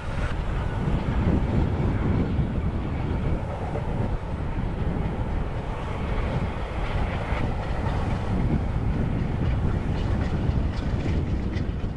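Bulleid Battle of Britain class Pacific 34067 Tangmere working a train at speed: a steady, heavy exhaust rumble from the steam locomotive.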